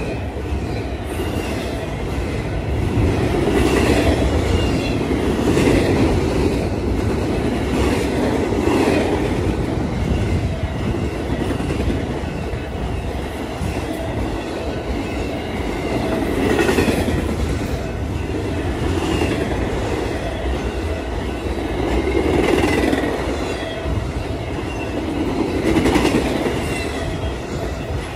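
Double-stack intermodal freight cars of a BNSF Z train rolling past at close range, wheels clattering on the rails. The rumble swells and eases every few seconds as the car trucks go by.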